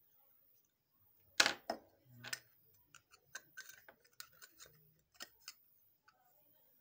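Small hard clicks and taps from an LED bulb's parts being handled: one sharp click about a second and a half in, then a run of lighter, irregular ticks and taps.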